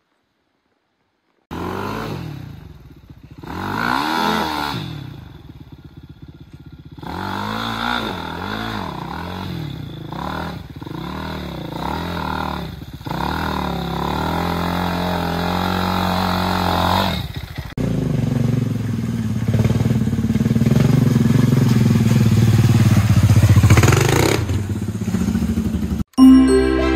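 Dirt bike engine revving up and down again and again, pitch rising and falling with each twist of the throttle, after about a second and a half of silence. From about two-thirds of the way in it runs more steadily at higher revs, and it cuts off near the end.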